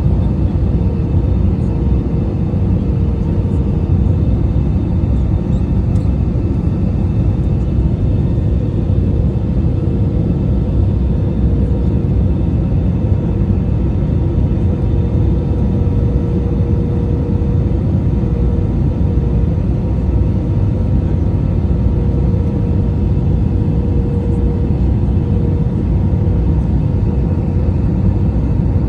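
Steady cabin noise of an Airbus A319 in flight: a low rumble of engines and airflow with a steady hum on top.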